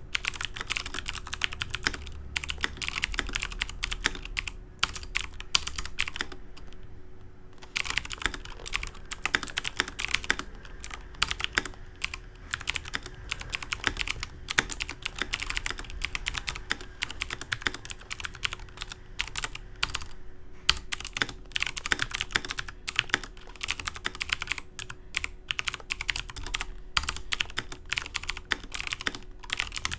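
XPG Summoner mechanical keyboard with clicky blue switches being typed on quickly, a dense run of sharp key clicks. The typing pauses briefly about six seconds in, then carries on.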